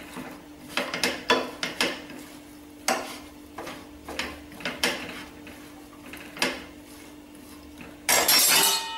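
Steel spoon scraping and clinking against a non-stick frying pan as a thick date and nut mixture is stirred and pressed, a dozen or so separate strokes through most of the clip. Near the end, a louder, harsher scrape ends in a metallic clang that rings on briefly.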